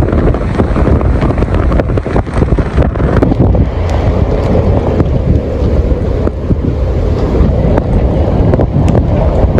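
Strong wind buffeting the microphone: a loud, continuous low rumble with frequent crackles.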